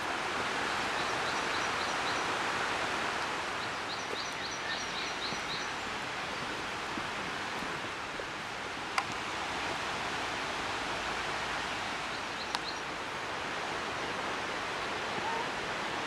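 Steady rush of a mountain stream, with a bird's quick run of high chirps twice in the first few seconds and two sharp clicks later on.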